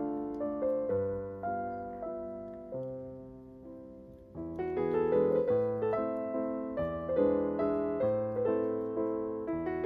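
Background piano music: a gentle run of struck notes that dies down to a quiet stretch about three to four seconds in, then fills out again with more notes.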